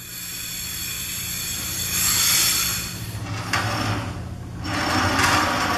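Compressed air hissing in two long swells with a short lull between, over a steady low hum, typical of a pneumatic muscle hoist being pressurised and vented.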